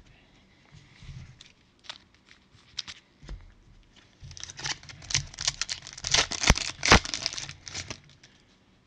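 A Mosaic basketball card pack's wrapper being handled, crinkled and torn open by gloved hands: a few light handling clicks at first, then a dense run of crinkling and ripping from about four seconds in, loudest near the seventh second with a couple of sharp snaps.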